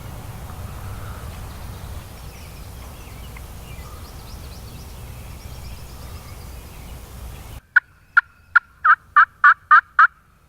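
Steady low rumble with faint small-bird chirps, then after a sudden cut a run of about eight turkey yelps near the end, each note longer and louder than the last.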